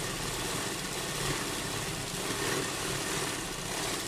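Sewing machine running steadily at speed, stitching bias-cut piping onto a kurta neckline.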